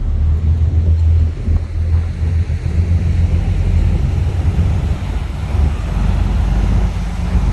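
Passenger ferry under way: its engines make a steady low drone, with wind buffeting the microphone.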